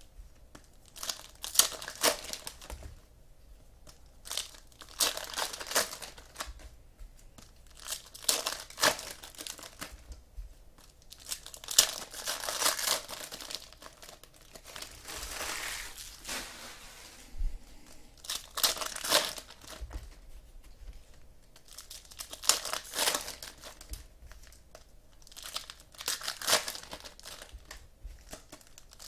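Trading-card pack wrappers being torn open and crinkled by hand, in irregular bursts of crackling with short quiet gaps between them.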